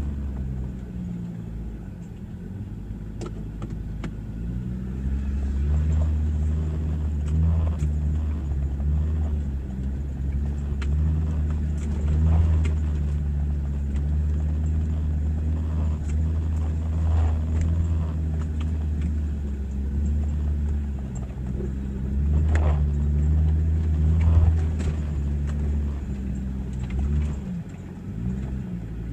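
A 4x4's engine working in low gear as the vehicle crawls up a steep, loose-rock hill. Its pitch rises and falls with the throttle, with scattered knocks and clicks from the rocks and the vehicle, and it eases off near the end.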